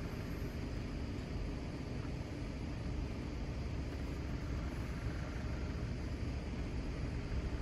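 Steady outdoor background rumble and hiss, strongest at the low end, with no distinct event standing out.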